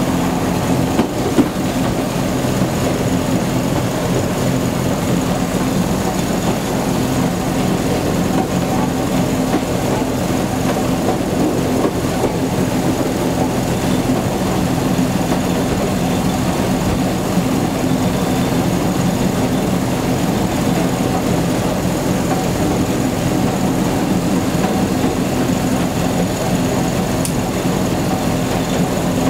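Replica NZR Model T Ford railcar under way along the track, its engine running steadily as heard from inside the driver's cab, with a couple of small clicks about a second in.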